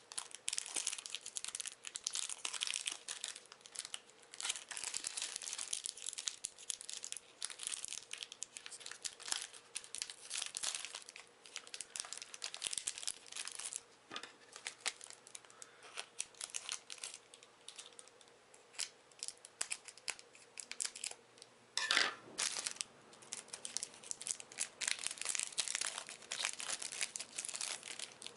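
Foil trading-card booster pack being torn open and crinkled by hand, an irregular run of crackling and tearing with a louder rip about three-quarters of the way through.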